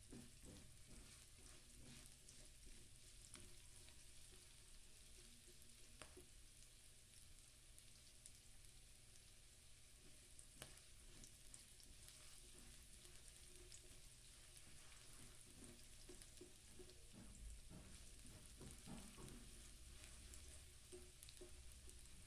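Diced onion frying faintly in oil in a nonstick wok, a low sizzle with soft scrapes and taps from a silicone spatula stirring it around the pan.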